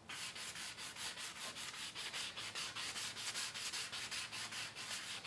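180-grit sandpaper rubbed by hand over the epoxy-coated tip of a wooden Greenland kayak paddle, in quick, even back-and-forth strokes of about six a second.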